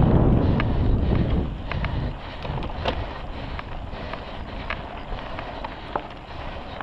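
Wind rushing over the microphone of a mountain bike ridden at speed, easing off about one and a half seconds in. A quieter rolling noise then remains, broken by scattered sharp clicks and rattles from the bike on the trail.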